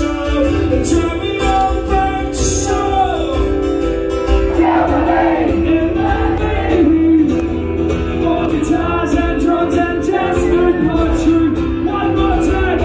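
Loud live rock music with singing, heard as it carries through a large room.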